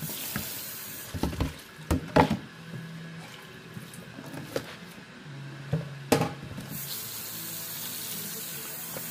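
Kitchen tap running into a stainless-steel sink, the water hiss louder and steadier from about seven seconds in, while wet fibre is rinsed. Several sharp knocks and clatters come as things are handled in the sink, the loudest about two and six seconds in.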